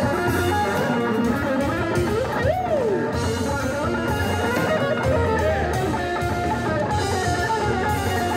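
Live band music led by an electric guitar, over keyboard and trumpets, with a steady low bass line; a pitch swoops up and back down about two and a half seconds in.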